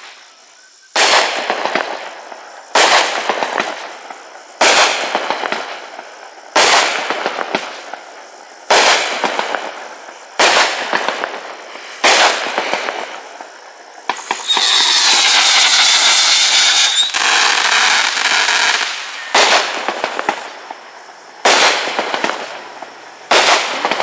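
Northstar "Deep Ocean" firework going off shot after shot, about a dozen loud reports roughly two seconds apart, each with a fading tail. About halfway through there is one longer, continuous stretch of noise.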